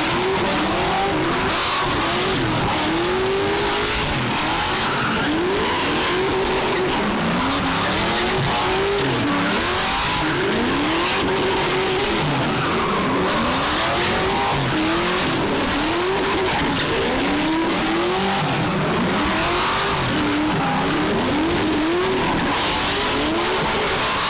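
A car engine revving hard and repeatedly, its pitch swinging up and down about once a second, over a constant hiss of spinning, skidding tyres as the car slides.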